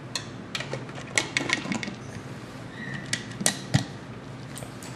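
Light, irregular clicks and clinks of things being handled in a kitchen, with the loudest knocks about three and a half seconds in.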